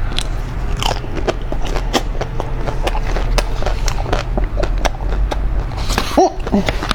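Close-up crunching and chewing of a small chocolate-shelled ice cream bar eaten in one bite: many sharp cracks of the shell breaking over a steady low hum.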